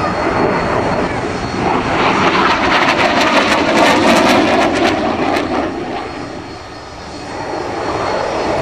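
Twin Adour turbofan engines of a SEPECAT Jaguar jet in a display pass: loud jet noise that swells to a peak around the middle, dips briefly about two-thirds of the way through, then rises again near the end.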